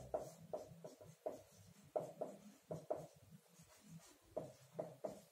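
Marker pen writing on a whiteboard: a quick, irregular run of short, faint strokes as letters are written.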